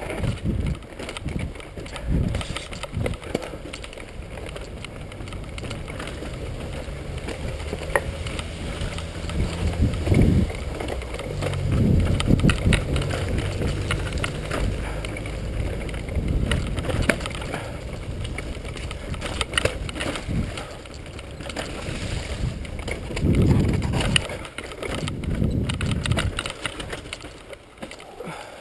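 Mountain bike riding down a rocky forest singletrack, heard from a camera on the bike or rider. The tyres crunch over stones and roots, the bike rattles with many quick clicks and knocks, and heavy thuds come over bumps, loudest about a third of the way in and again near the end.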